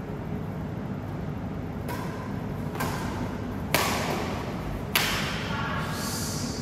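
Badminton rackets striking a shuttlecock during a rally: a few sharp cracks, the two loudest about a second apart near the middle, each with a short echo in the hall.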